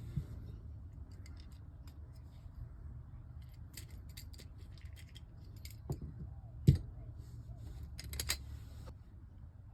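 Small clicks and clinks of parts being handled and test-fitted, with one sharp knock about two-thirds of the way through.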